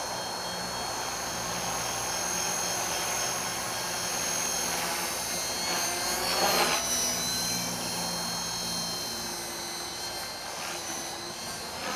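T-Rex 450 electric RC helicopter flying at a distance: a steady high-pitched whine from the motor and gears over a lower rotor hum. About halfway through it swells louder and bends in pitch as it manoeuvres.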